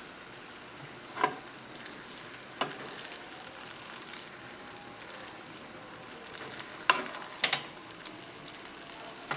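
Masala sizzling steadily in a pan as fried fish pieces are laid into it one by one, with a few sharp clinks of a utensil against the pan: one about a second in, one near three seconds, and two close together around seven seconds.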